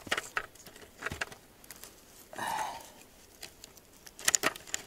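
Gloved hands fastening a trail camera's strap around a birch trunk: rustling and scraping of strap and bark, with a quick run of sharp clicks near the end as the strap is pulled and secured.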